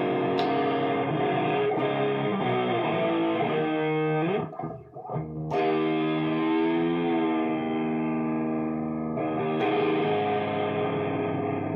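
Electric guitar played through a homemade guitar amplifier switched to distortion: long, sustained distorted chords, with a brief break about four and a half seconds in, then a held chord that wavers in pitch and another chord change near the end.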